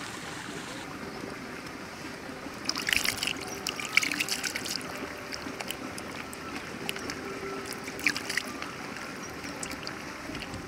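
Hands working marinade into raw chicken leg pieces on a plastic plate: wet squelching with irregular sharp clicks and smacks, starting about three seconds in and going on unevenly.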